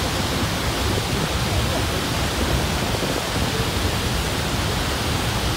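Niagara Falls: a dense, unbroken rush of falling water, steady throughout.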